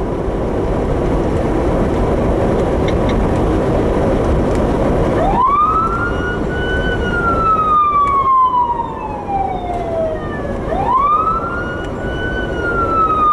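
Vehicle engine and road noise, then about five seconds in a police siren switches on in wail mode. Each cycle climbs quickly, holds briefly at the top and falls slowly over about five seconds, and a second cycle begins near the end.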